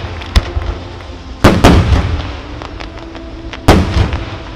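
Aerial firework shells bursting in a display: three loud bangs, about half a second, a second and a half and nearly four seconds in, the later two the loudest, each trailing off briefly. Faint music plays underneath.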